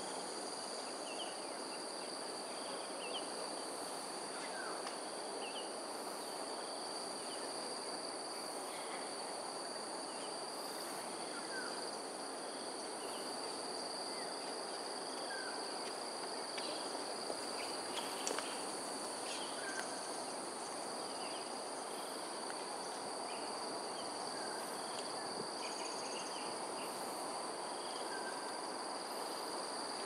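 Outdoor morning ambience: a steady, high-pitched insect drone at two even pitches, with short bird chirps scattered throughout over a steady background hiss.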